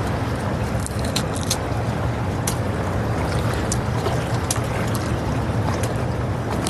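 Strong wind buffeting the microphone over surf, a steady low rumble, with scattered sharp clicks and taps on top.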